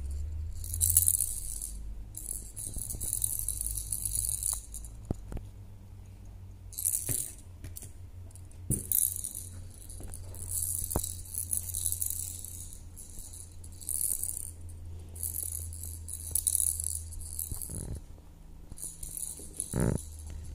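A kitten's rattle toy shaken in repeated short bursts as the kitten bats and pounces on it, over a steady low hum.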